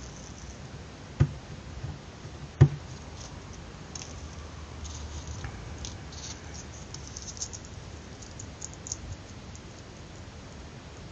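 Close-up handling sounds of paper being rolled and crinkled around a metal nail, with faint scattered rustles and ticks. Two sharp knocks stand out, a little over a second in and again about a second and a half later, the second one the loudest.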